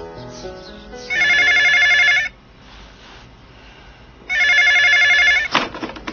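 Telephone ringing twice, each ring a trilling tone about a second long, about two seconds apart. A short clatter of clicks follows near the end.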